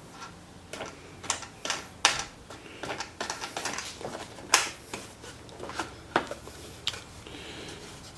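Wooden pieces and sled parts being handled and set down: a string of irregular light clicks and knocks of wood on wood, the sharpest about two seconds and four and a half seconds in.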